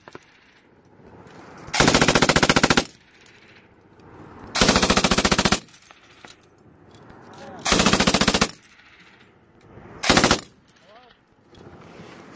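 Belt-fed machine gun on a bipod firing four bursts of rapid shots: three of about a second each, then a short one near the end.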